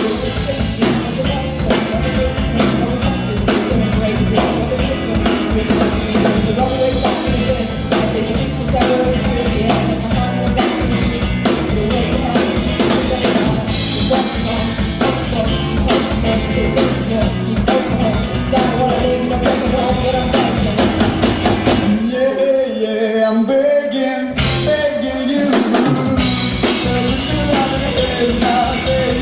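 Rock band music with drum kit, bass and guitar, and no sung words. About twenty-two seconds in, the drums and bass drop out for a few seconds while the higher parts carry on, then come back.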